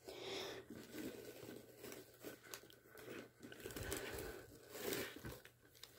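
Faint, irregular rustling and crinkling handling noise, with a few soft scrapes and bumps spread through.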